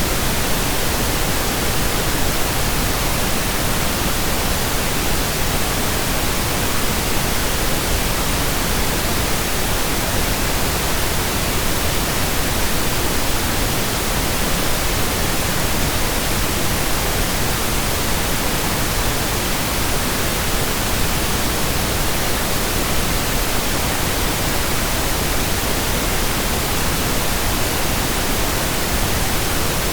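Steady synthetic pink noise: an even, unchanging hiss spread across the whole range, with no events or variation.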